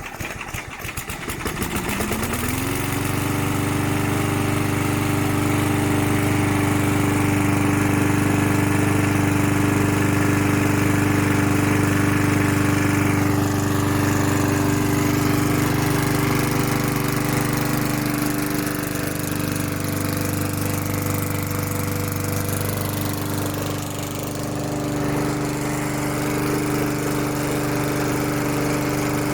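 Briggs & Stratton 4 hp Quattro single-cylinder four-stroke engine on a walk-behind lawn mower, pull-started: it catches right away, climbs to speed over about two seconds, then runs steadily at full throttle.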